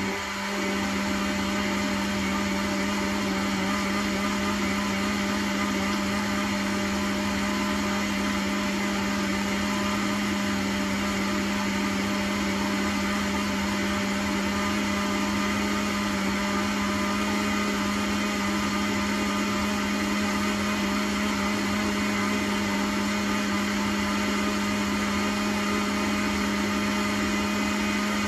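Countertop blender switching on and running at one steady speed, a constant motor hum, as it grinds cooked tomatoes and green chile with garlic and water into sauce.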